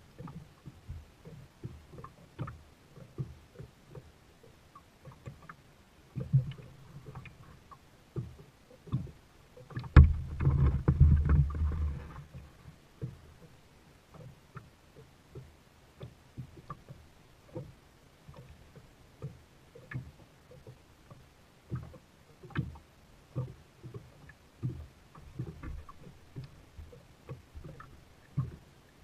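Knocks, clicks and light water sounds from a plastic kayak on the water, with scattered small bumps against the hull. About ten seconds in a louder thump is followed by about two seconds of low rumbling.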